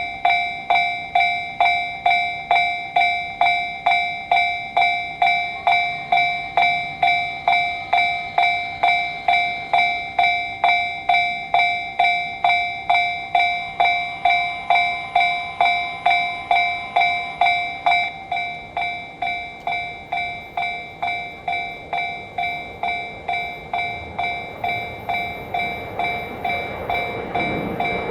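Japanese railway level-crossing warning bell ringing steadily at about two strikes a second, turning slightly quieter about eighteen seconds in. Near the end the rising noise of an approaching Yamanote Line train grows beneath it.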